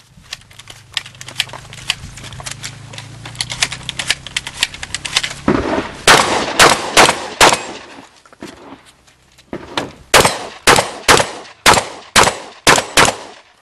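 Baikal MP-153 semi-automatic shotgun fired in quick strings: about five shots half a second apart, a pause of a couple of seconds, then about eight more at the same pace. Before the first shot there is a run of fainter rapid clicking.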